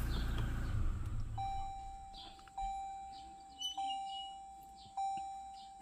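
A pickup engine's idle stops within the first second. Then an electronic chime dings four times, about once every 1.2 seconds, each ding fading away: the vehicle's warning chime with the engine off.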